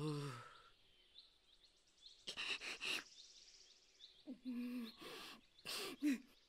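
Night-forest ambience of faint high chirps repeating steadily, broken by short vocal sounds: a voice trailing off in a falling groan at the start, breathy huffs a little over two seconds in, and two short low calls near the end.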